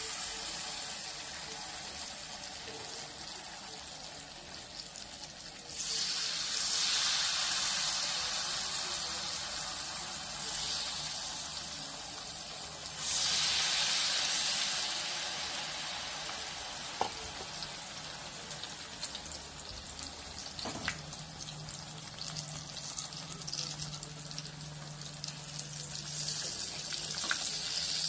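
Wheat-flour malpua batter frying in hot oil in a pan: a steady sizzle that swells suddenly twice, about six and about thirteen seconds in, as fresh ladlefuls of batter go into the oil. A few light clicks of the spoon against the pan come later.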